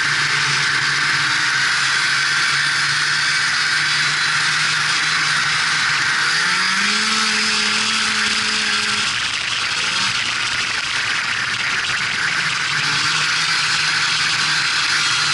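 Polaris Indy Sport 340 snowmobile's two-stroke engine running under way, with a steady rushing hiss over it. The engine pitch rises about six seconds in, holds for a few seconds, then eases back down.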